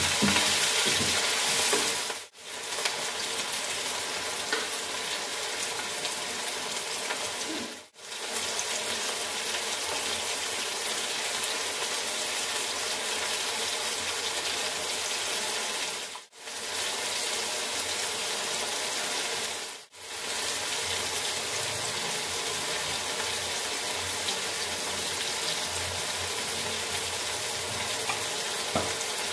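Potatoes, tomato and onion frying in hot oil in a nonstick wok: a steady sizzle, with a slotted spatula stirring through it at first. The sound drops out briefly four times.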